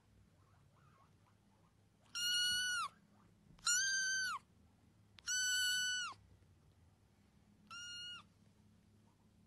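A tabby kitten meowing four times, high-pitched calls each held level and dropping at the end, the last one shorter and quieter.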